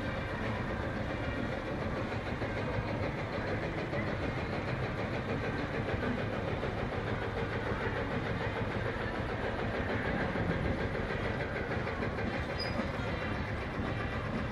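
Vintage tractor engine running with a steady rhythmic beat as the tractor drives past towing a trailer over cobblestones.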